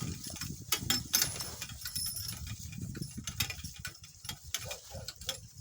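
Donkey-drawn cart in motion over farm ground: irregular clicks and rattles over a low rumble.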